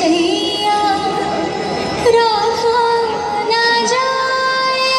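A Bollywood song with a female voice singing long, held, gliding notes, played over loudspeakers for a dance.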